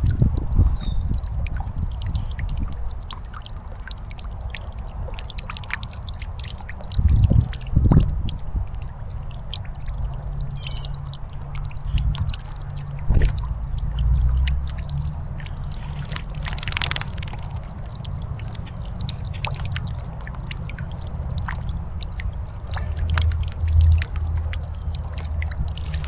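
A bird bath's small fountain spraying and splashing steadily into the basin, with a few short, louder splashes.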